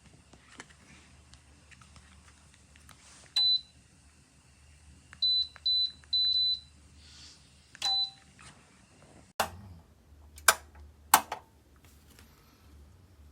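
A run of short, high-pitched electronic beeps, five in all, one held a little longer. They are followed by three sharp clicks or knocks about a second apart.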